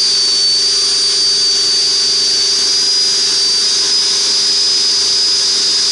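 Two 70 mm 12-blade electric ducted fans running up at high throttle: a loud, steady high-pitched whine over a rush of air, the pitch edging up slightly a little over halfway through.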